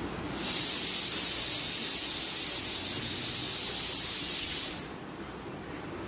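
A loud, steady, high-pitched hiss that starts suddenly about half a second in and cuts off suddenly after about four seconds.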